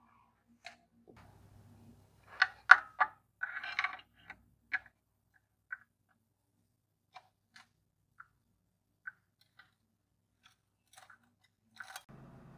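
Scattered metallic clicks and clinks of a socket wrench and extension working the 10 mm bolts of a Perodua Myvi's upper oil pan, with a louder cluster of sharp clicks about two and a half seconds in and single ticks after that.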